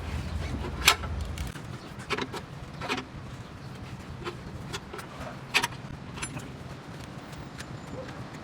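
A handful of sharp metallic clicks and clanks from tyre-changing tools and parts being handled during a spare tyre change, over a low rumble that stops about a second and a half in.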